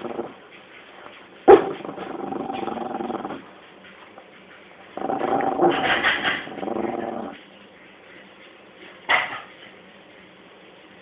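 Yorkshire terrier growling with a toy ball in her mouth at a hand reaching toward her. There are two long growls: the first opens with a sharp bark, and the second, louder one comes in the middle. A short sharp bark follows near the end.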